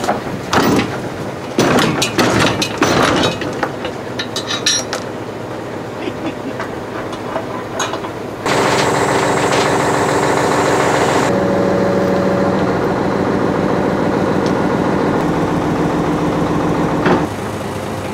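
Metal clanks and knocks from a truck's steel side panels and chain. About eight seconds in, the truck's hydraulic loader crane starts running: a steady engine-and-pump drone that shifts pitch as the crane works.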